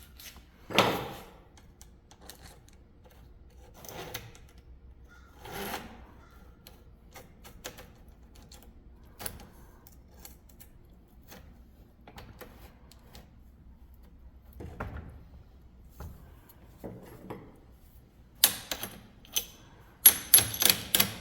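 Hands working the parts of a Stihl string trimmer during reassembly: scattered light clicks and knocks of plastic and metal, with a quick cluster of sharper, louder clicks and clatter near the end.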